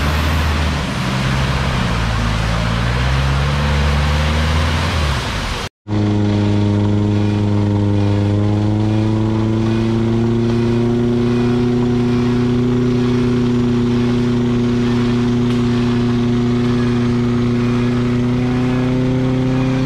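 A 4x4 off-road truck's engine revving up and down as it churns through deep mud, with mud splashing. After a sudden cut, a steady motor whine that climbs a little in pitch and then holds: the front winch reeling in its cable to pull the stuck truck through the mud.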